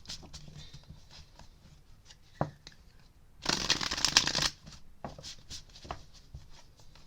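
Tarot cards being shuffled by hand: a dense burst of fast card flicks lasting about a second in the middle, with a single sharp tap earlier and faint card handling around it.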